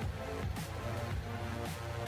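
Background music with a steady beat over a strong bass line.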